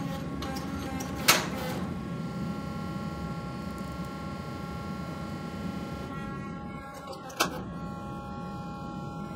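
Forging press running with a steady motor hum while its punch works a hot steel axe blank, with two sharp metallic clanks, one about a second in and one near the end.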